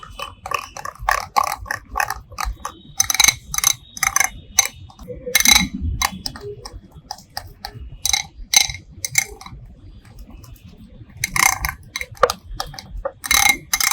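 A spoon mixing a thick onion-paste masala in a bowl, clinking and scraping against the bowl in irregular strokes, with a short quieter pause past the middle.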